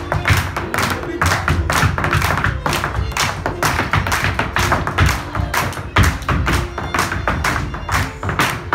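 Step dancer's shoes beating a fast rhythm of taps and stamps on a wooden stage, with hand-clapping in time.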